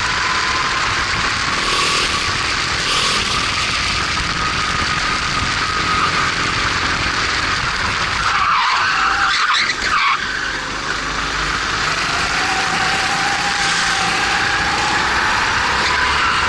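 Formula 270 racing kart's engine running hard, heard from the driver's seat, with a dense rush of noise underneath. About nine seconds in the engine note breaks off briefly, then climbs steadily again.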